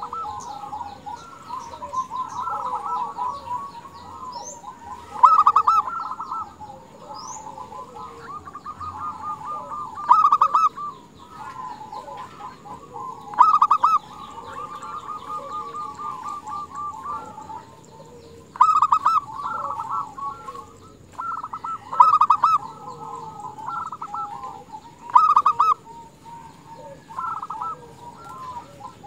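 Female zebra dove (perkutut) calling: runs of quick, stuttering coos, with six louder bursts a few seconds apart and softer rattling coos between them. It is a female's call, used to lure males into singing.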